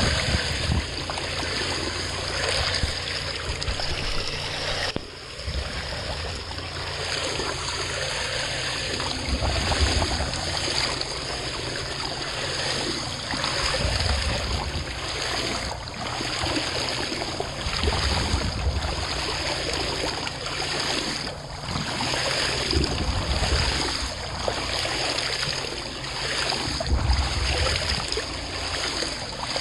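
Remora Solo rotary hull-cleaning brush spinning at the waterline, churning and splashing water against the boat's hull as it scrubs off slime and moss. The splashing runs on steadily in surges, dipping briefly about five seconds in.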